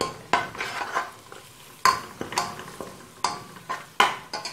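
Metal spoon stirring spice powder into fried onions in a metal pot, knocking and scraping against the pot's base and side about six times with a short ring.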